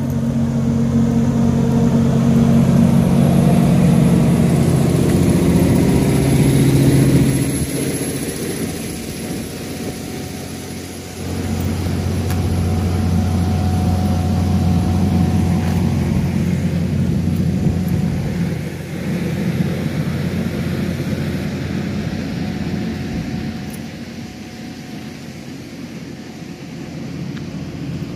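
Trailer-mounted generator engine running with a steady hum. About eleven seconds in a second, lower steady engine hum takes over, easing off over the last part.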